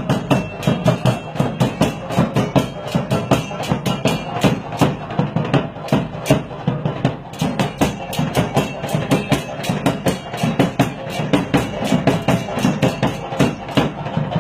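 Dance music played loudly over a sound system, with a fast, steady percussion beat of about four hits a second.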